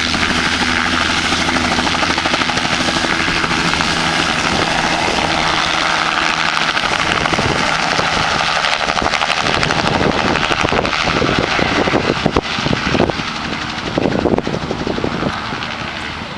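Bell 206L LongRanger turbine helicopter lifting off and climbing away, its rotor and engine running loud and steady. The low rotor tones fade about halfway through as it flies off, and wind buffets the microphone in the second half.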